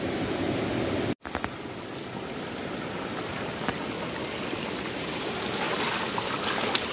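Steady rush of shallow running stream water. It cuts out completely for a moment about a second in.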